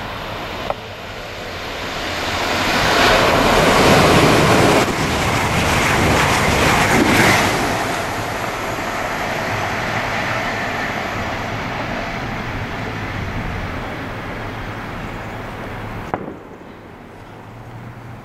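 East Midlands Trains Class 222 Meridian diesel multiple unit passing through at speed. Its engine and wheel noise swells as it approaches, is loudest for a few seconds as it goes by, then fades slowly as it runs away. The sound cuts off abruptly near the end, leaving a quieter background.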